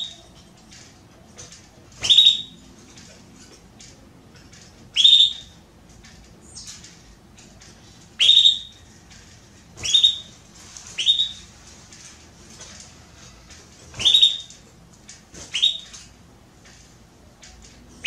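Domestic canary hen giving loud, short upward-sweeping calls, seven of them, one every two to three seconds, with faint chirps between. These are the calls of a hen asking for a mate, ready to breed.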